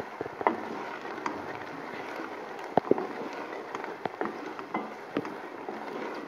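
Sliced onions sizzling in hot oil in a steel pot, stirred with a wooden spoon that scrapes and knocks against the pot a few times.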